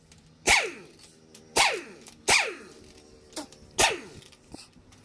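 A dog barking four times, each bark short and sharp with a falling pitch.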